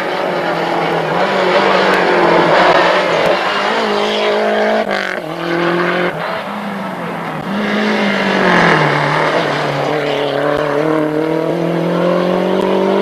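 Rally car engine at high revs on a gravel stage, its pitch dropping and climbing again several times as the driver shifts gear and lifts, over a steady hiss of tyre and gravel noise.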